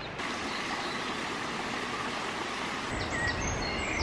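Steady rush of a river flowing over rocks, with birds chirping near the end.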